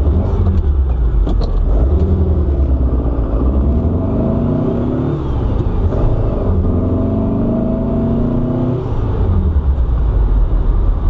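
Air-cooled VW Super Beetle flat-four running on dual carburettors, accelerating under load: the engine note rises, drops about halfway through as it shifts, then rises again before easing off near the end, over a low rumble.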